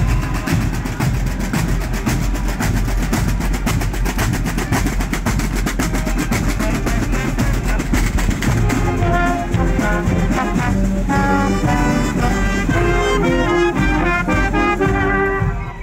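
Marching band playing: fast drumming through the first half, with a brass tune of trumpets and trombones standing out clearly from about halfway through.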